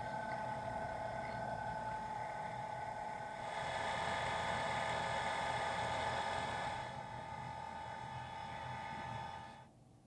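Machine tool running with a steady whine of several pitched tones over a low rumble, getting louder for about three seconds in the middle, then cutting off abruptly near the end.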